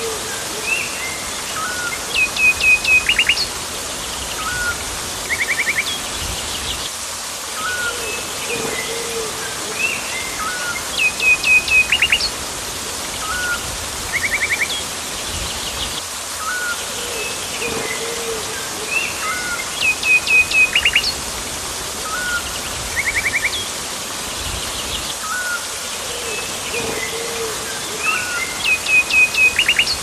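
Tropical forest birds calling over a steady hiss of water. A loud run of five or six sharp whistled notes, a quick rattling trill, short high chirps and a lower call make up a sequence that recurs about every nine seconds.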